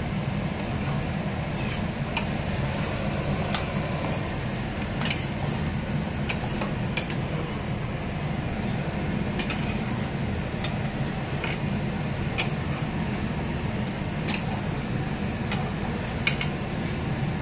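Steady fan-like hum in a kitchen, with scattered light clicks and taps of a utensil against a cooking pot as the curry is stirred.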